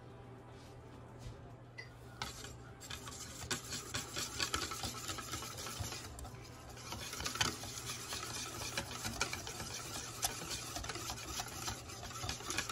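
Wire whisk beating thin crepe batter in a stainless steel bowl: fast, irregular ticking and scraping of the wires against the metal, starting about two seconds in.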